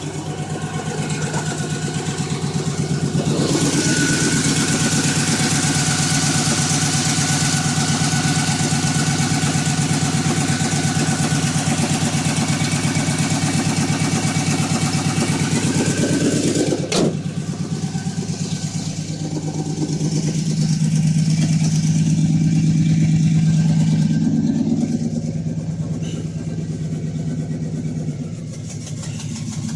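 1982 Chevy C10's rebuilt 350 small-block V8 running steadily, growing louder about four seconds in and swelling again for a few seconds past the middle. There is a single sharp click about halfway through.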